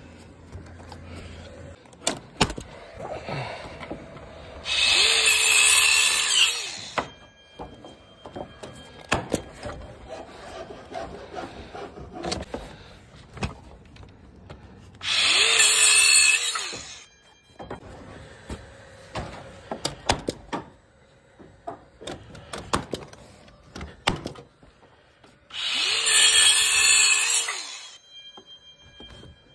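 A power tool run three times for about two seconds each while fixing timber roof battens, its motor note dipping under load and recovering, with clicks and knocks of handling the battens in between.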